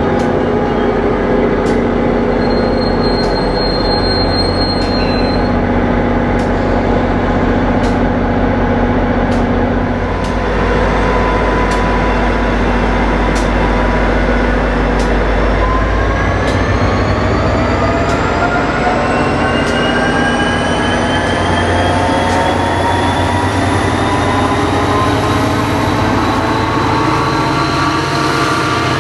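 NJ Transit GP40PH-2B diesel locomotive running steadily at a station. From a little past halfway, its engine and motor whine rise steadily in pitch as it pushes the train away.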